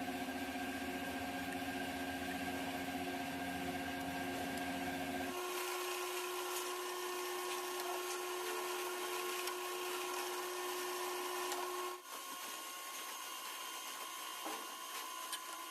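A metalworking machine tool running steadily with a constant hum and whine. The sound changes abruptly about five seconds in and again about twelve seconds in.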